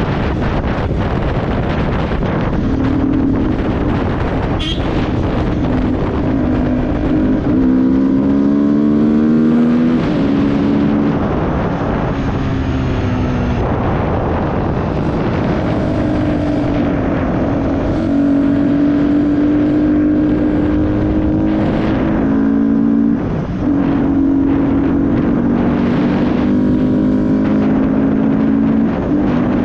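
Motorcycle engine running at road speed, its note climbing and dropping with throttle and gear changes, under heavy wind rush on the microphone.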